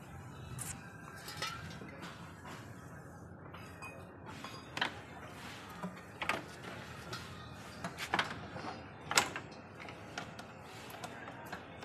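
Irregular metallic clicks, clinks and knocks of hands and tools working on a car's radiator and A/C condenser assembly, the sharpest about nine seconds in, over a low steady hum.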